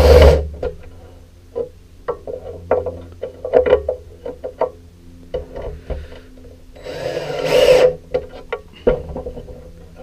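Cordless drill-driver driving screws to lock a wooden blank onto a plywood jig table: a short burst of the drill at the start and a longer one, rising in pitch, about seven seconds in. Knocks and taps of wood and fittings being handled come in between.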